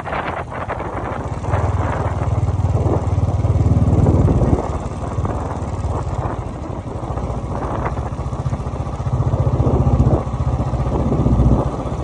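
Motorcycle engine running while the bike rides along a road, a steady low rumble that swells louder a few times.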